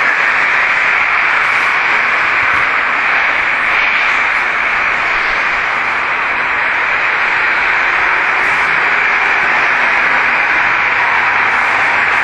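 Steady, loud hiss with no breaks or changes.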